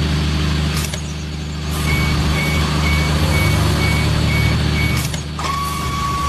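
Truck engine running steadily while a reversing beeper beeps about twice a second. Near the end a steady high-pitched tone comes in.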